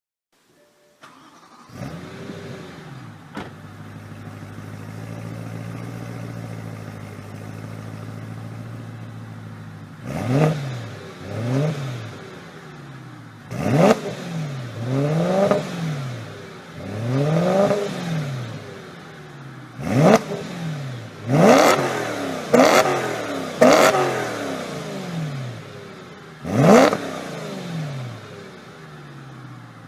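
BMW M3 E92's 4.0-litre V8 with an aftermarket exhaust system starting up and settling to a steady idle. About ten seconds in, it is revved in a series of about nine sharp throttle blips, each rising and falling in pitch, before dropping back to idle near the end.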